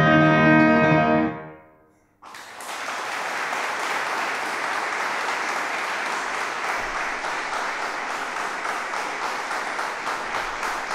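Trumpet and piano hold a final chord that dies away about two seconds in. After a brief silence, the audience breaks into steady applause.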